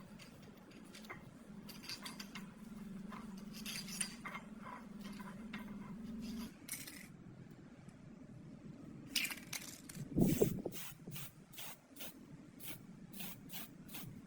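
Light clinks and taps of small hard objects being handled, over a low hum that cuts off about six and a half seconds in; near the end comes a quick run of ticks.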